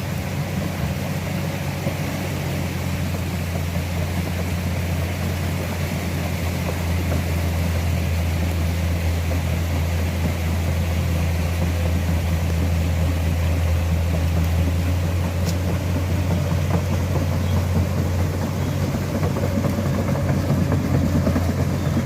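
Komatsu excavator's diesel engine running with a steady low drone while the machine works through a flooded mud pool, growing slightly louder partway through.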